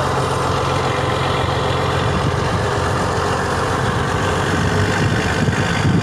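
Fishing boat engine running steadily, a low drone under the rush of wind and breaking waves.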